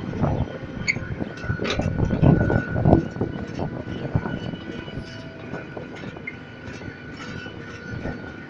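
Panorama ride train running along its elevated track: a steady high whine, with rumbling and a few heavy knocks in the first three seconds, then steadier running.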